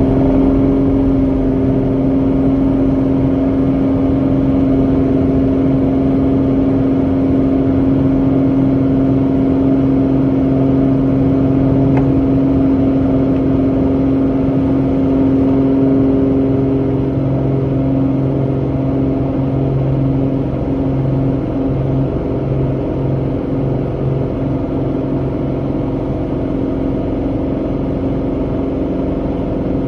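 GA8 Airvan's six-cylinder Lycoming IO-540 engine and propeller at full takeoff power, heard from the cabin: a loud, steady drone through the takeoff roll and lift-off into the climb.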